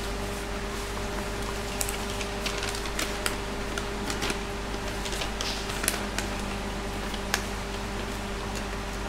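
Crackling and crinkling of a folded paper instruction sheet as it is unfolded and spread open by hand, a string of sharp rustles over a steady low hum.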